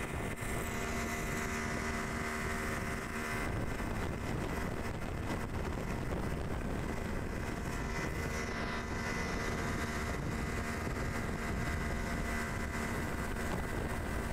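Speedboat's outboard motor running steadily at speed, with the rush of water and spray from the hull and wake.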